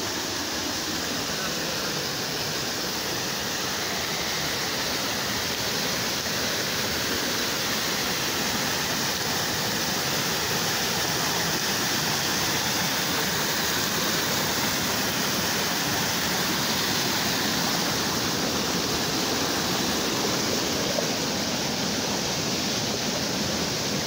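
Waterfall: water cascading over rocks in a steady rush, growing slightly louder toward the middle.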